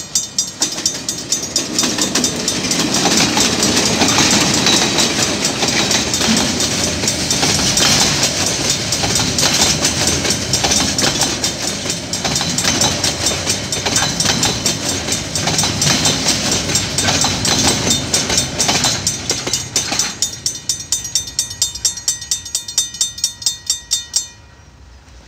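Mechanical level-crossing bell ringing steadily at about three strikes a second while a KiwiRail container freight train passes over the crossing, its wagon wheels clacking on the rails. The train noise falls away about 20 s in, and the bell stops shortly before the end.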